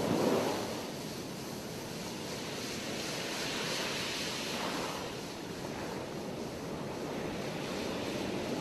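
North Sea surf breaking and washing up the beach in a steady rushing noise, with wind on the microphone; a louder gust or wave swells briefly at the very start.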